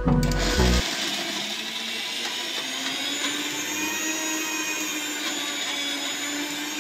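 Sujata mixer grinder's motor running steadily at a near-constant pitch, grinding coconut, onion, ginger and green chilli in its steel jar. Background music cuts off about a second in.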